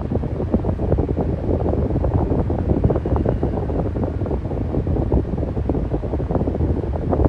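Electric fan running steadily: a low, fluttering rush of air, with its airflow buffeting the microphone.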